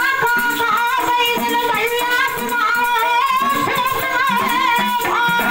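A man sings a Bundeli goat folk song into a microphone, with a held instrumental drone and a fast, steady beat of small jingling percussion.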